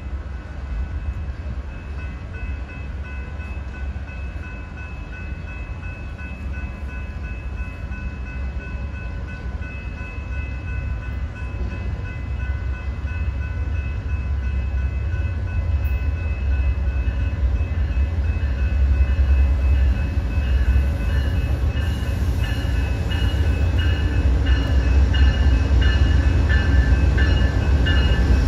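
Amtrak Silver Meteor passenger train arriving, its deep rumble growing steadily louder as it draws in. A high ringing tone runs over it and turns into a quick repeated pulsing in the last several seconds.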